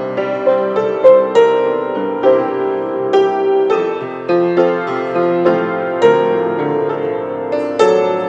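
Grand piano played solo: a hymn melody over chords, with notes struck about twice a second.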